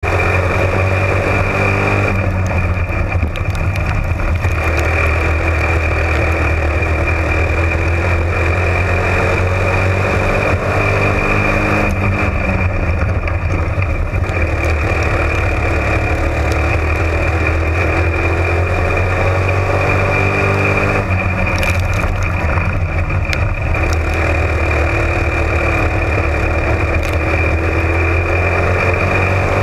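Florida Spec Modified (slingshot) race car engine running hard, heard from inside the cockpit. Its pitch dips and climbs again about every ten seconds as the car lifts for the turns and accelerates out of them on the dirt oval.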